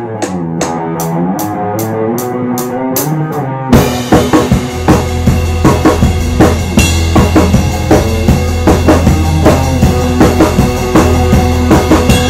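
Live rock band instrumental: a lead line with bending notes plays over a steady high tick, then about four seconds in the full band comes in with drum kit, bass guitar and keyboard, the drums beating hard and regularly.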